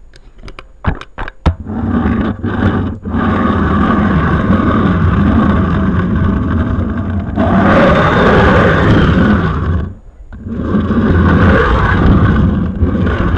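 OO gauge model coach's wheels rumbling along the rails as it is pushed by hand, heard through a camera strapped to the coach itself. A few sharp clicks come first, and the rumble breaks off briefly about ten seconds in before starting again.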